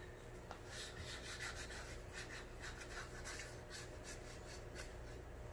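Felt-tip marker scribbling on a white board: faint, quick scratchy strokes of the tip rubbing across the surface, several each second.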